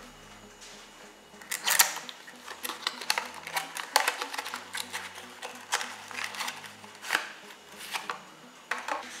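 Packaging of a toy fidget spinner being handled and opened by hand: irregular crinkles, clicks and taps, starting about a second and a half in.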